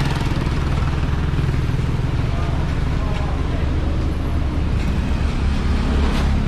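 Street traffic: motorcycles and cars passing close by, over a steady low rumble.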